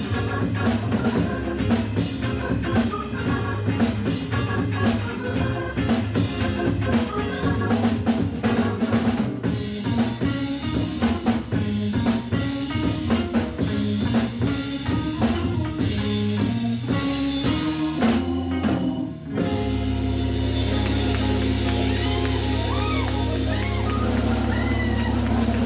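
Hammond B3 organ trio with guitar and drums playing, with busy drum hits, then closing on a long held chord over a cymbal wash about two-thirds of the way in, with a few sliding guitar-like pitches on top.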